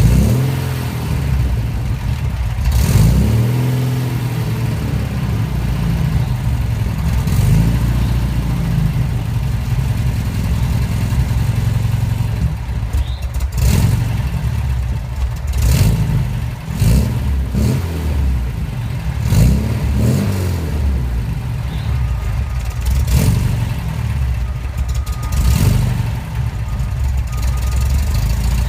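Porsche 914 2.0's air-cooled flat-four engine running unevenly, revved up and let fall back again and again, with several short sharp pops or clacks among the revs. This is an engine that has been hard to start since a valve adjustment and new spark plugs.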